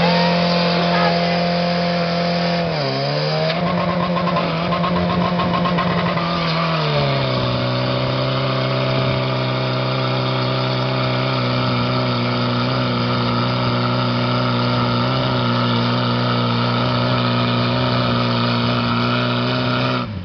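Portable fire pump's engine running hard and steady. Its pitch dips briefly about three seconds in, then falls around seven seconds in to a lower steady pitch that holds.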